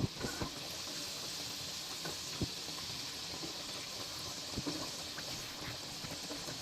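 Food cooking on the stove: a steady hiss with scattered soft pops, the loudest just at the start and about two and a half seconds in.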